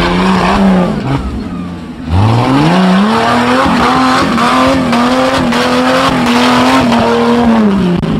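Off-road 4x4 vehicle's engine revving. It dips, then about two seconds in climbs sharply and is held at high revs for about five seconds before easing off near the end.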